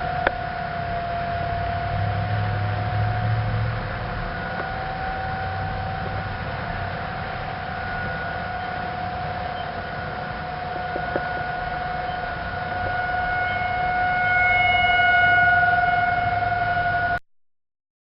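Outdoor tornado warning siren sounding its steady wail, one held tone signalling a tornado warning. It gets louder a few seconds before it cuts off suddenly near the end.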